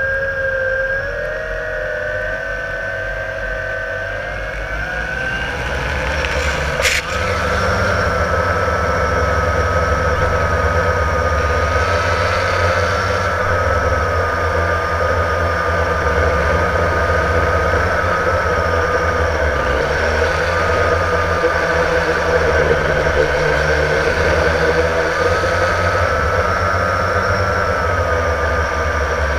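Blade 350 QX quadcopter's electric motors and propellers whining, heard from the camera mounted on the craft. The pitch climbs between about four and seven seconds in as the motors spool up for lift-off, with a sharp click at about seven seconds. After that the whine holds steady over a low, even noise.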